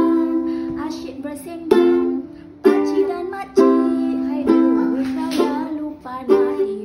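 Background music led by a plucked string instrument, chords struck about once a second and left to ring.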